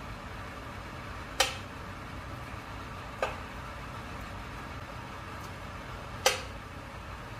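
Thick butter chicken gravy simmering in a pan, with three sharp pops as bubbles burst in the sauce, over a steady low hum.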